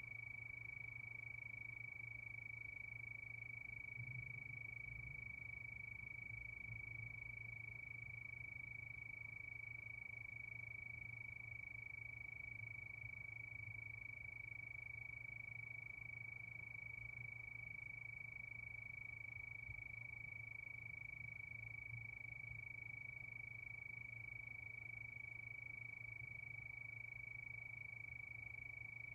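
Steady chorus of crickets, their trilling blended into one continuous high-pitched tone, over a faint low hum.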